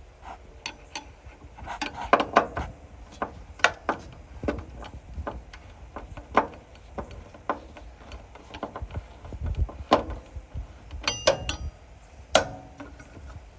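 Irregular clicks, taps and knocks of hand work on a furnace's loose flame rollout switch as it is reseated, with a short metallic ring near the end.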